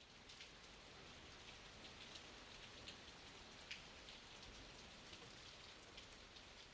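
Faint steady rain, with scattered drops ticking now and then.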